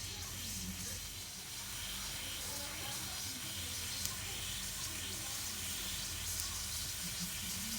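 Steady hissing rush over a low steady hum, with one small click about halfway through.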